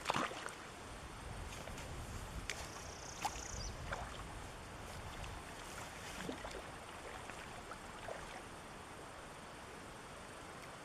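Steady rush of a small brook's running water, with a few sharp clicks and knocks, the loudest right at the start, and a brief high whine about three seconds in.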